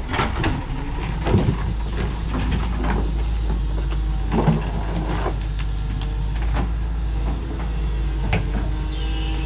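Diesel engine of a Doosan DX225LCA excavator running steadily, with a few short knocks and clanks from the machine working.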